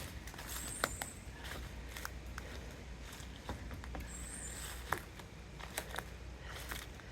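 Scattered light clicks and taps, like steps or handling, over a steady low hum, with a short high chirp that comes back about every three and a half seconds.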